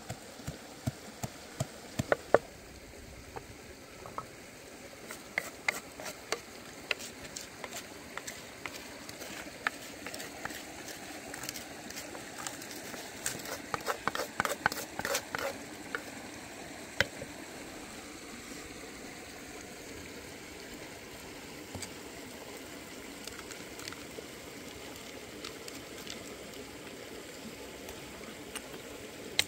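Scattered clicks and light knocks of food going into an iron wok, with a quick run of light patters about 13 to 16 seconds in as chopped chilies and garlic are tipped in.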